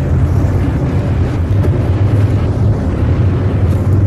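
Steady low droning rumble in the background, with a few faint short clicks.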